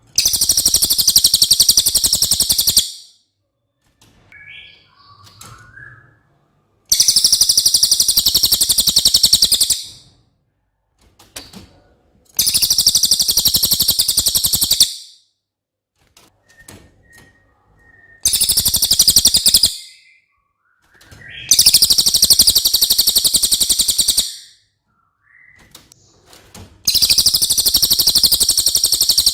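Cililin songbird singing: six long, loud, very high, rapid trills of about two and a half seconds each, with short pauses between them that hold faint soft calls.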